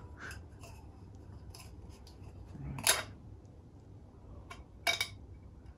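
A pick tool clicking and scraping against a plastic oil filter housing cap while an O-ring seal is worked on it. A few sharp clicks stand out, about three seconds in and again near five seconds.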